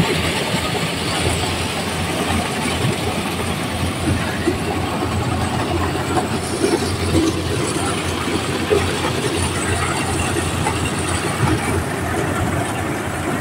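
Diesel-driven mobile corn sheller running while shelling corn cobs: a loud, steady machine din from the engine and threshing drum, with a few knocks and rattles from the cobs going through.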